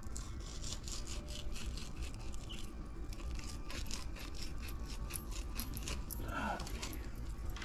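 Rapid, repeated scraping strokes, several a second, of a knife scraping scales off a fish.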